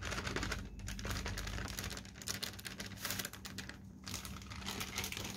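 Thin plastic bag crinkling and rustling in the hands as wheat flour is emptied from it into a bowl: a dense run of small crackles.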